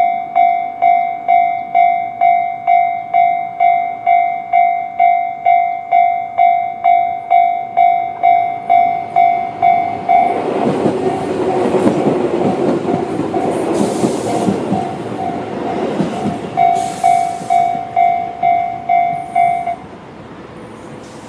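Japanese level crossing's electronic warning bell (Tobu-style tone) ringing steadily at just under two strikes a second. About ten seconds in, a Tobu 800-series electric train passes for roughly six seconds, with wheel rumble and rail clicks. The bell rings on briefly after the train clears, then cuts off suddenly near the end.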